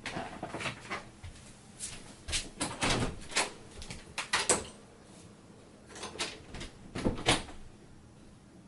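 Irregular knocks and clunks on a door, coming in small clusters with a lull about five seconds in.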